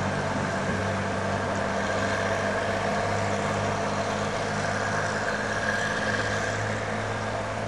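A narrow-gauge train's locomotive engine running steadily as the train pulls away: a steady low hum with a higher whine above it, easing off a little near the end.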